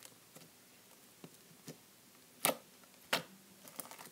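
White glossy slime being squished and poked by hand, giving sharp clicks as trapped air pops out. The two loudest clicks come about two and a half and three seconds in, with fainter ones scattered around them and a quick flurry near the end.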